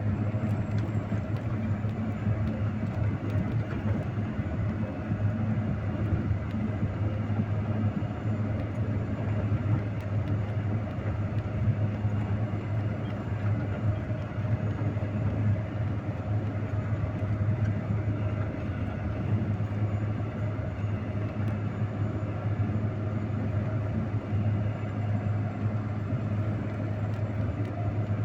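A vehicle's engine running steadily at an even, unchanging pitch as the vehicle drives on.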